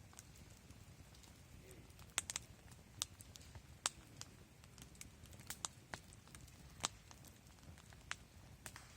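Wood campfire crackling softly: scattered sharp pops and snaps at irregular intervals, the loudest about two, three, four and seven seconds in, over a low steady hiss.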